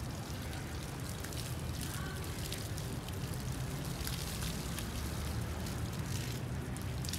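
Water from a garden hose splashing and pattering onto a cow's wet hide and the grass during washing: a steady hiss with many small drips and splashes, over a steady low rumble.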